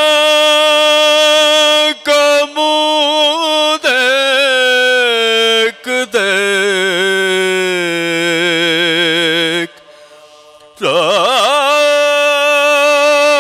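Male voices chanting a soz, a Shia elegy sung without instruments, in long held notes with wavering ornaments. The singing stops for about a second near the end, then comes back with a swooping rise into another held note.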